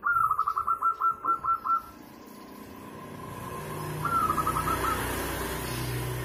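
Zebra dove (perkutut) song: a quick run of about eight staccato cooing notes at the start, then a shorter run of about five notes around four seconds in. A low rumble builds up underneath from about three seconds in.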